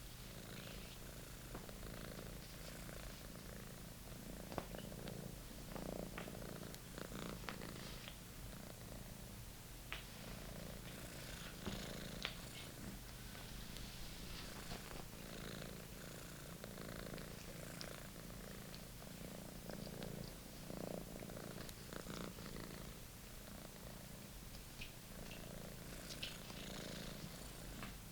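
British Shorthair kitten purring steadily, with scattered light clicks and rustles.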